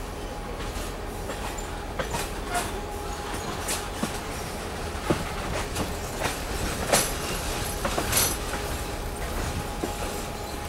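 Passenger train rolling along the track, heard from an open coach window: a steady low rumble of wheels on rail, broken by irregular sharp clicks and knocks, with a faint steady squeal from the wheels underneath.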